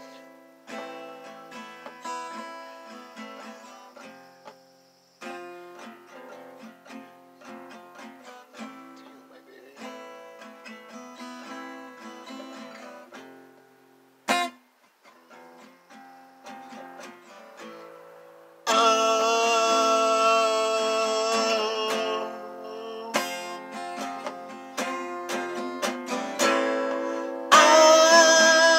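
Acoustic guitar played on its own, note by note, then about two-thirds through a man's voice comes in singing over it, much louder than the guitar.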